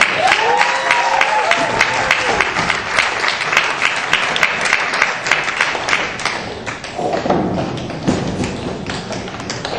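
Audience applause with a cheer near the start, mixed with sharp clicks and thumps of tap shoes on the stage. The applause thins out towards the end.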